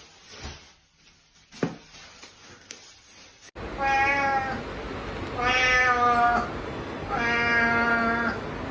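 A cat meowing three times, each a long, drawn-out meow of about a second on a fairly steady pitch. The meows start about four seconds in, after a few faint clicks.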